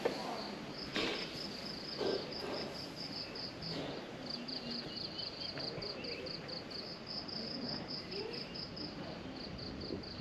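Insects chirping in a steady rhythm, about four to five high pulses a second, over soft outdoor background noise.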